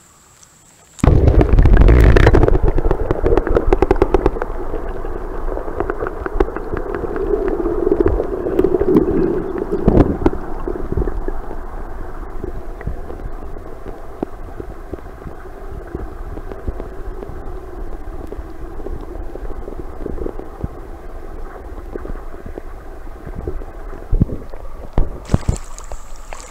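Muffled underwater sound through a camera microphone dunked in creek water. It starts abruptly and loudly about a second in, goes on as a dull churning water noise with scattered knocks of handling, and cuts back to open air near the end as the camera comes out.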